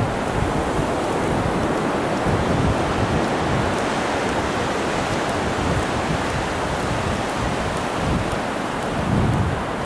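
Ocean surf washing on a beach, a steady hiss, with wind buffeting the microphone in low rumbling gusts.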